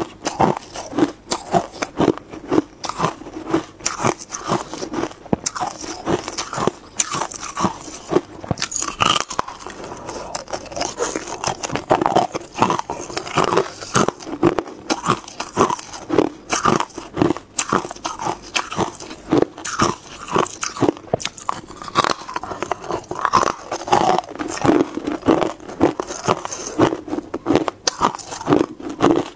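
Hard clear ice crunched and chewed between the teeth in a quick, steady run of crisp cracks, close to a clip-on microphone.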